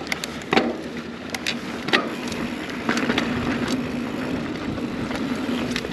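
2021 Scott Spark 970 full-suspension mountain bike ridden down a dirt trail: tyres rolling and the bike rattling, with several sharp knocks over bumps and a steady hum underneath.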